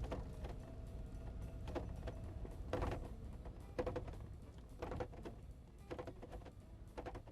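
Mercedes-Benz SLK Vario roof knocking on a rough road: irregular metallic bangs and clatters over a steady low road rumble, the loudest about three and four seconds in. This is the noise the roof's front locking hook can make when it sits too high or too low in its retainer on the windshield frame.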